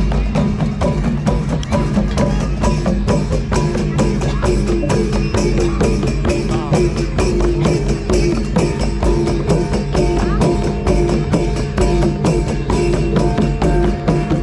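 Music with a fast, steady percussion beat, about three strikes a second, over held melodic tones and a heavy bass.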